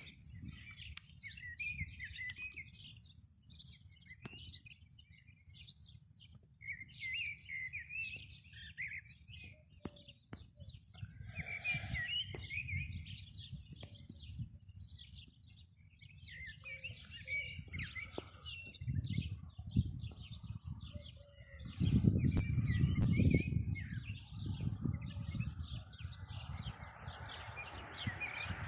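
Small birds chirping and singing, many short calls and trills overlapping throughout, over a low rumble that swells about two-thirds of the way in.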